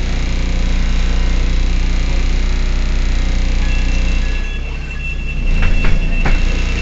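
Heuliez GX 127 city bus engine running steadily with a low hum. About halfway in, a steady high-pitched beep starts and holds, and a few clicks and knocks come near the end.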